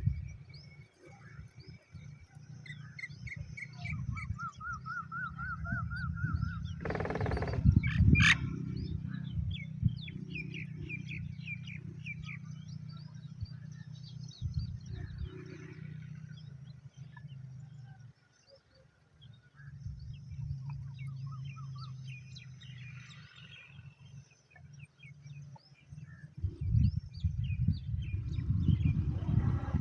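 Birds chirping, with a trilled call about four seconds in, over a louder low rumble. Two sharp knocks come about seven and eight seconds in.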